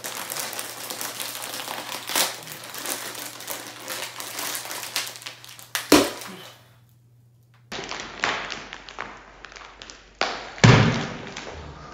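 Shiny foil-type snack bag crinkling as it is pulled and twisted by hands straining to tear it open, with a sharp thump about six seconds in and a louder thump near the end.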